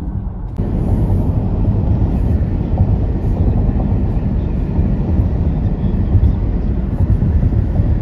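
Heavy wind rumbling and buffeting on the microphone, coming in suddenly about half a second in. Before that there is the steadier hum of a car's road noise inside the cabin.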